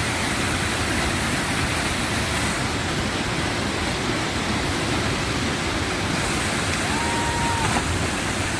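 Waterfall's water pouring and splashing steadily, a constant rushing noise.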